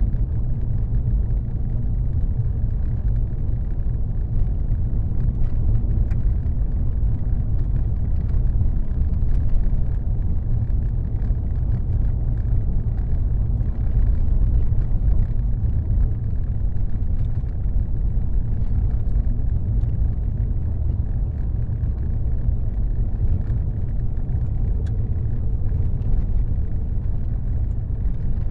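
Car driving at motorway speed: a steady low rumble of tyres on the road and the engine.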